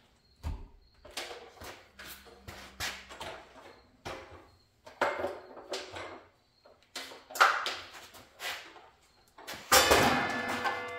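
Scattered knocks and clinks of metal parts being handled and set down on a workbench, with a louder clatter near the end.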